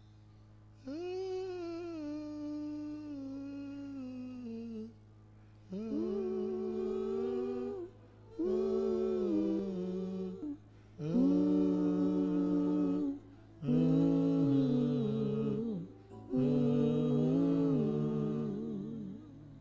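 A man humming a hymn melody into a microphone, in six long phrases with short pauses for breath between them. The notes are held and step up and down in pitch.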